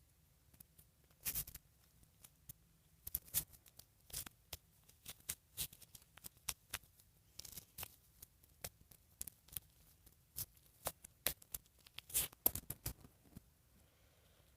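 Close handling noise of a doll and its clothing being worked: irregular short rustles and small clicks, with the loudest bursts about a second in and again near the end.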